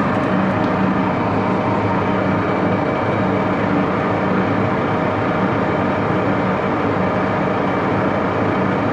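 Axelson metal lathe running in reverse, its headstock gear train giving a steady whir with several held tones. Run in reverse, the gears throw extra oil up to the gears at the back of the headstock.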